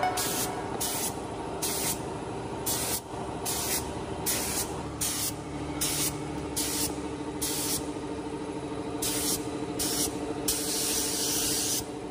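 Gravity-feed air spray gun spraying paint onto wheel rims in short hissing bursts, about one a second, then a longer continuous spray near the end. A steady hum runs underneath.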